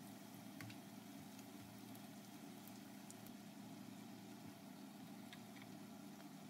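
Vegetable pakoras deep-frying in hot oil: a faint, steady sizzle over a low, constant hum, with a few faint ticks scattered through.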